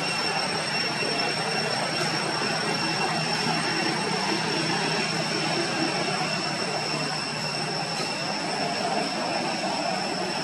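Steady, even background noise with a thin, high, steady whine over it, without sudden sounds.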